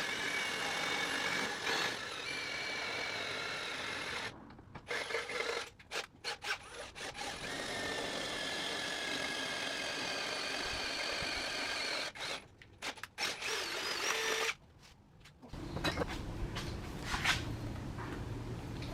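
Electric drill boring a hole through a metal part. The motor whines steadily in long runs, broken by short stop-start bursts on the trigger, and stops about fourteen and a half seconds in. Lower scraping and handling noise follows.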